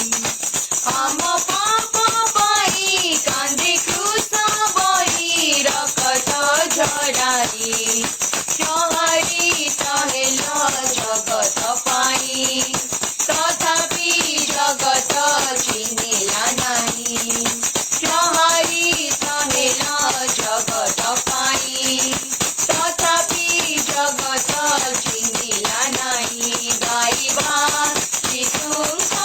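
Worship song music: a melody line over a steady, busy tambourine rhythm.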